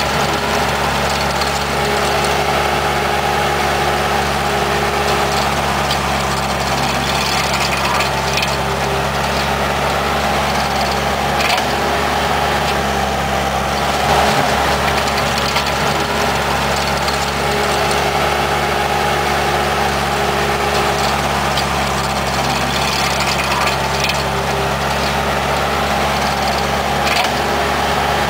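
Bobcat skid-steer loader's diesel engine running steadily under load while its hydraulic stump grinder wheel chews into a tree stump. A few sharp cracks from the cutting teeth stand out over the engine.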